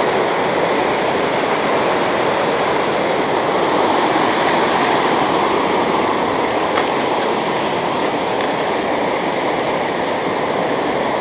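Fast-flowing stream running high, rushing loudly and steadily over rocks and rapids.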